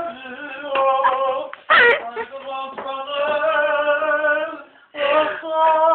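A man singing loudly in a high voice, drawing out long wavering notes, with a short loud cry about two seconds in.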